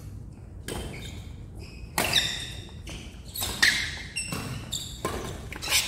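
Badminton rackets striking a shuttlecock back and forth in a rally, a sharp crack about every one to two seconds, with short high squeaks of shoes on the court floor between hits.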